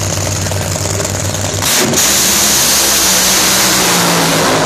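Two nitro-burning funny cars' supercharged V8 engines idling at the starting line, then going to full throttle about a second and a half in with a sudden, very loud blast that lasts about three seconds as the cars launch down the track, easing off near the end.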